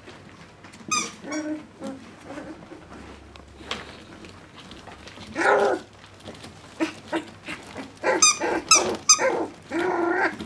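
Young puppies yapping at play: short, high-pitched yips and small barks, a few at a time, with a longer whining bark near the end.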